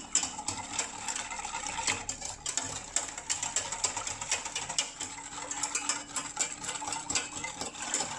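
Wire balloon whisk beating a thin liquid pastry-cream mix in a small stainless steel saucepan: fast, irregular clicking and scraping of the wires against the pan, with the liquid swishing.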